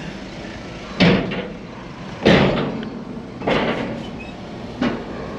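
Four heavy clunks a little over a second apart, the last one weaker, as a Volkswagen Amarok's wheels and suspension roll over the ferry's loading ramp, heard from inside the cab over the low rumble of the vehicle.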